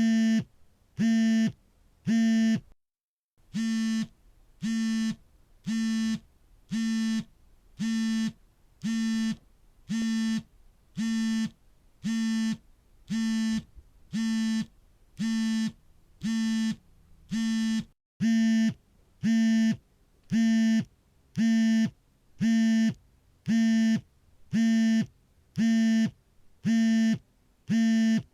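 Smartphone vibrating on an incoming call: a low, pitched buzz in short pulses, about three every two seconds, with a brief pause about three seconds in.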